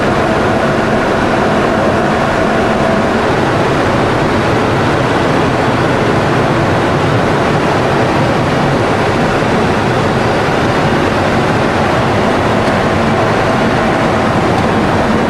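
Steady, loud in-flight cockpit noise of a Boeing 707-airframe jet: a constant rush of airflow and engine noise with no changes.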